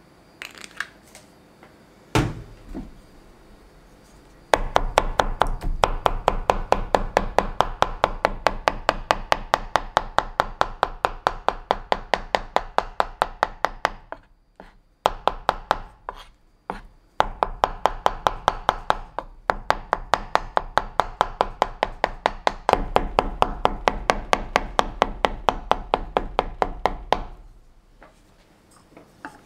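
Kitchen knife rapidly chopping raw filefish liver with chili pepper on a plastic cutting board, about five strikes a second, mincing it to a paste. The chopping breaks off for a few seconds midway, with a couple of single knocks, then resumes and stops near the end.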